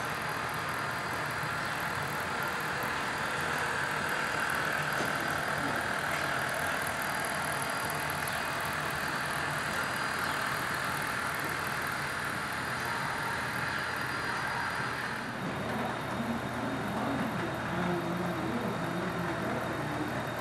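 HO-scale model diesel locomotives running past close by, with a steady whir of their electric motors and gearing and metal wheels rolling on the track. The whir grows fainter about fifteen seconds in.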